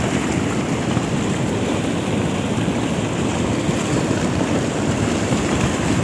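Hot volcanic mudflow (lahar) from Semeru rushing over and around rocks: a loud, steady, low rush that does not let up, the flowing mud so hot that it steams.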